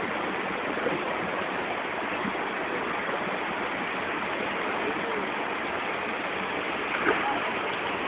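Rain-forest waterfall: a steady rush of falling, splashing water.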